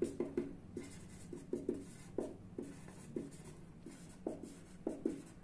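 Felt-tip marker writing on chart paper: about a dozen short, irregular strokes as letters are drawn.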